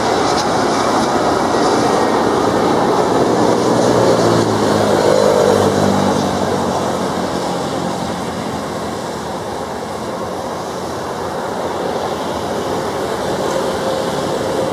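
Airbus A320 jet airliner's engines running loud as it goes by, growing louder to about five seconds in with a falling whine, then easing off.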